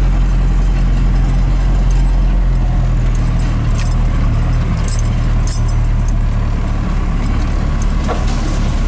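Classic pickup truck's engine running with a steady low drone as it drives slowly off-road, with scattered light clinks and rattles over it.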